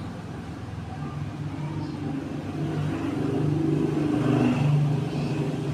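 An engine running with a steady low hum, growing louder over the last couple of seconds and then cutting off abruptly.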